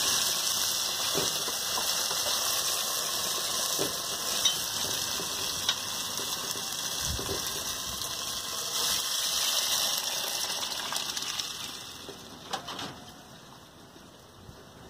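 Cooked bayo beans poured into a hot clay cazuela over a wood fire, hitting the hot fat and sizzling in a steady hiss that dies down about twelve seconds in. This is the first fry of the beans before they are mashed into refried beans.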